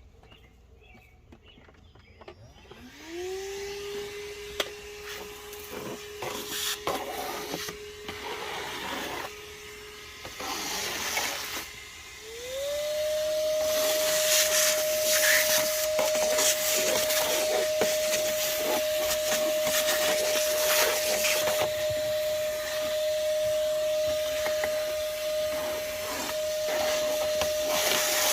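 Moosoo 18 V cordless shop vacuum starting up and running steadily at a lower speed. About twelve seconds in it spins up to a higher-pitched, louder speed and holds there. Irregular clicks and rasping from the nozzle and debris being sucked up run over the motor.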